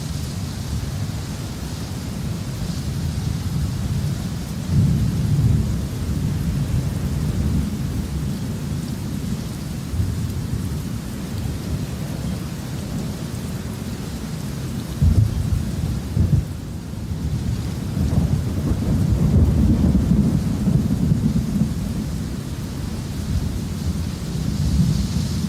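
Thunderstorm: steady rain with low rolling thunder rumbling throughout, swelling in louder rolls about five seconds in, at around fifteen seconds, and again near twenty seconds.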